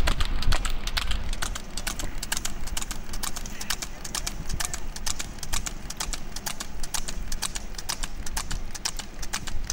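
Water buffalo bull trotting on an asphalt road while pulling a cart: a steady run of sharp hoof strikes on the tarmac.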